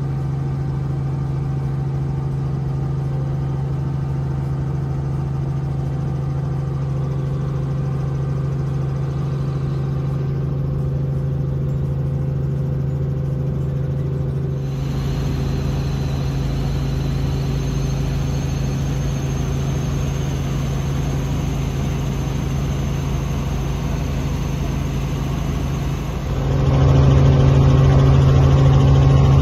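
Robinson R44 Clipper II helicopter in flight, heard from inside the cabin: the steady drone of its piston engine and rotors with a strong low hum. It gets louder near the end.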